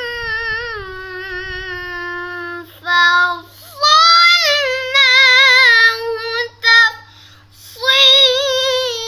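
A young boy chanting Quran recitation in the hijaz melodic mode at a high pitch: long held notes with a wavering ornament, each phrase sliding downward. He breaks off for breath twice, about three and a half and seven seconds in.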